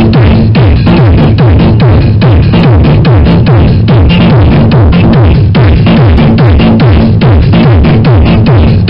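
Techno-style electronic dance music played very loud through a trailer-mounted wall of car-audio subwoofers and speakers, with a deep bass note that drops in pitch on every beat, about four beats a second.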